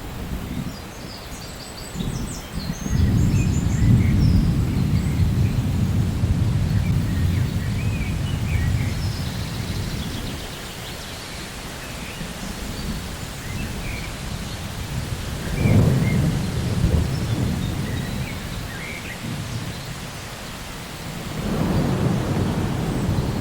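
Thunder rolling over steady rain: a long low rumble builds about three seconds in and slowly dies away, with another peal past the middle and a third near the end.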